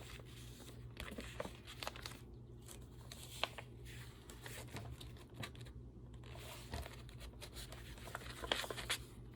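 Paper pages and inserts of a handmade junk journal being turned and handled: irregular rustling and crinkling with light taps.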